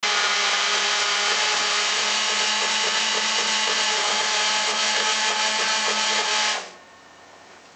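Chainsaw running at a steady high speed, starting suddenly and cutting off about six and a half seconds in, leaving only faint noise.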